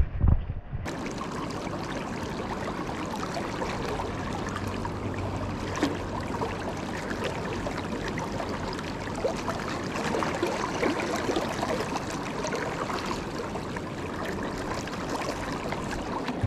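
Shallow, fast river water rushing steadily over stones close around a wading angler, after a few brief handling knocks at the very start.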